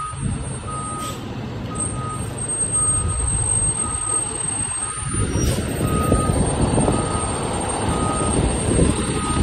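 Fire rescue truck's backup alarm beeping about once a second over its diesel engine running. The engine grows louder about halfway through as the truck pulls past, and the beeping stops near the end.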